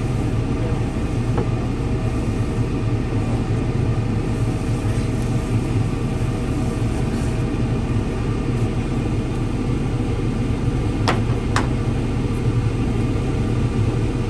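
An engine running steadily at a constant speed, a low rumble with a steady hum over it. Two short sharp clicks come about eleven seconds in.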